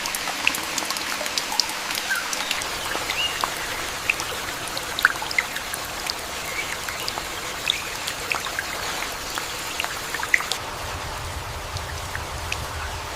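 Heavy rain falling steadily, with many individual large drops striking close by. A low rumble comes in about eleven seconds in.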